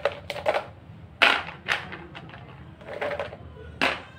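Kitchen clatter: a handful of irregular sharp clicks and knocks, as of kitchenware being handled, the loudest about a second in.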